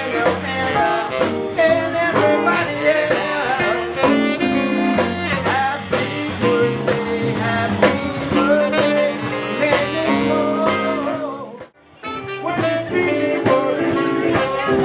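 Band music in a New Orleans jazz-blues style: horns, guitar and drums over a steady beat. About twelve seconds in the music cuts out for a moment, then another passage starts.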